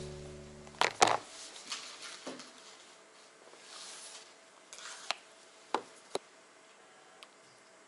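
Handling sounds at a wooden desk: two sharp knocks about a second in, then faint rubs and a few light taps as an Apple Pencil and tablet are handled on the tabletop. Background music cuts off about a second in.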